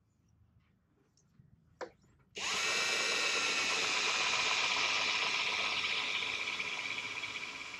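Cordless drill starting suddenly about two and a half seconds in and running steadily, boring a 7/32-inch pilot hole for a number 14 screw through the PVC splash rail into the boat's hull; it eases off slightly near the end.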